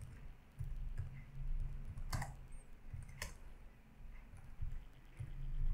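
Typing on a computer keyboard: scattered soft keystrokes, with two sharper clicks about a second apart near the middle.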